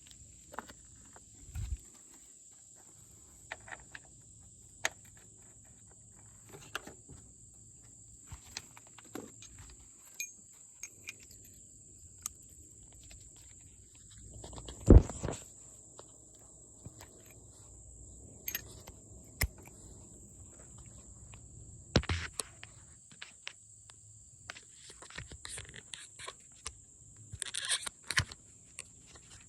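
Scattered clicks and knocks, with one louder thump about halfway through, over a steady high-pitched whine or insect-like tone.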